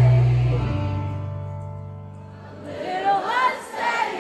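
Live band music: a held low chord fades away over about three seconds, then singing comes in near the end.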